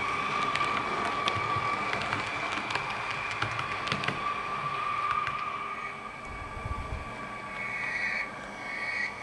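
H0-scale Brawa model of a DB Twindexx Vario double-deck train with sound running past: a steady high whine with sharp clicks from the wheels over the rail joints, fading about halfway through as it moves away. Two short chirps come near the end.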